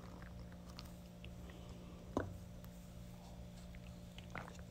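Quiet room tone with a steady low hum, broken by a short click about two seconds in and a fainter one near the end.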